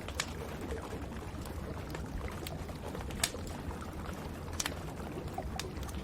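Wood fire crackling in a fireplace with rain falling: scattered sharp pops over a steady low rush, the loudest pop about three seconds in.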